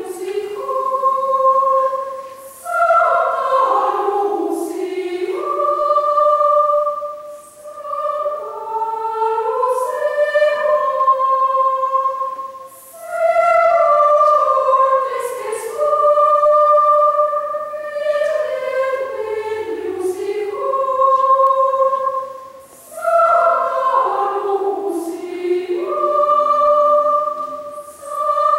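Children's choir singing, long held notes in phrases of about five seconds with short pauses between them.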